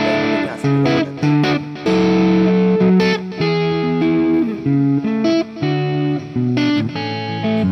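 Electric guitar with humbucker pickups played through a drive preset on a multi-effects unit: chords and single-note phrases with short breaks between them. The guitar's volume knob is turned down, so the drive cleans up to a lighter, cleaner tone.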